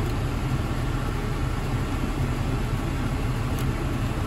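Volvo XC60 climate-control blower fan running flat out, a steady rush of air from the dash vents inside the cabin, with the engine idling underneath. The blower is stuck at this speed and ignores the fan-speed control, a fault the owner puts down to a failed blower resistor (power stage).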